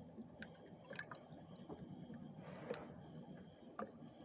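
Faint dripping and lapping of sea water, with scattered light clicks at irregular times and a low steady hum.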